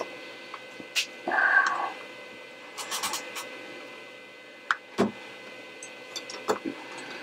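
Clicks and knocks of a digital multimeter being handled and set down on a workbench, ready for a continuity check, with one short squeaky, meow-like sound about a second and a half in.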